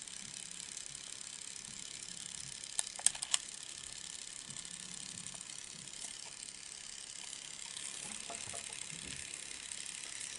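Panasonic SX65 Walkman cassette mechanism running with a steady faint whir: the newly fitted drive belt is turning the tape transport. A few sharp button clicks come about three seconds in.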